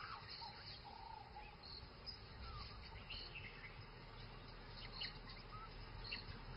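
Faint, scattered high chirps and short squeaks over a quiet outdoor background.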